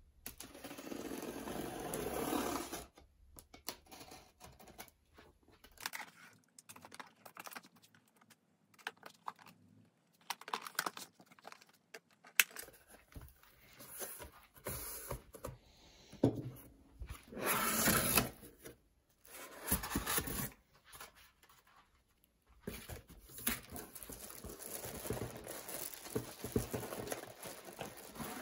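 Packaging being handled during an unboxing: cardboard and plastic rustling, crinkling and tearing in irregular spells, with scattered clicks and light knocks.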